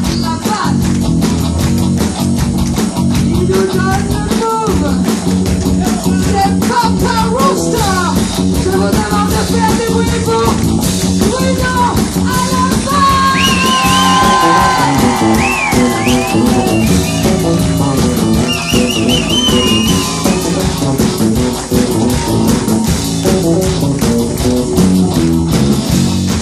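Live rock band playing, with electric guitars, bass and a drum kit, and a woman singing.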